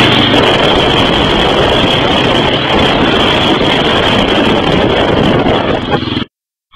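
ATV engine running while riding, mostly buried under loud, dense rushing noise on the camera's microphone. The sound cuts off abruptly to silence near the end.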